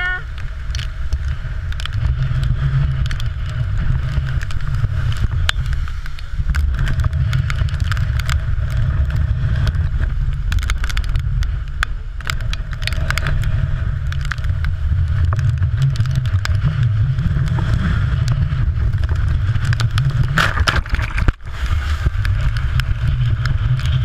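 Strong typhoon wind buffeting the camera microphone as a steady low rumble, with rain and spray ticking on the camera. The rumble drops out briefly near the end.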